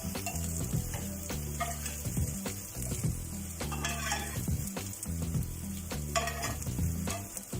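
Raw-minced chicken patties sizzling in an oiled grill pan, with scattered clicks and scrapes of a utensil against the pan as they are lifted out.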